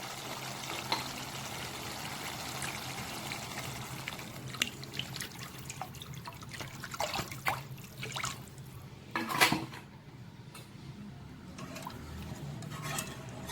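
Water poured into a pan of cooked curry masala, trickling in, followed by a few scattered clicks and knocks.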